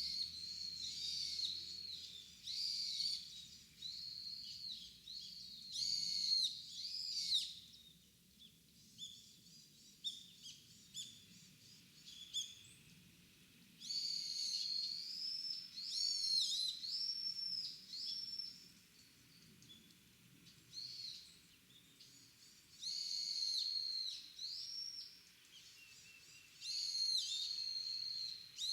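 Wild birds calling and singing in repeated high phrases of a second or two each, one after another, with a quieter spell of softer chirps midway.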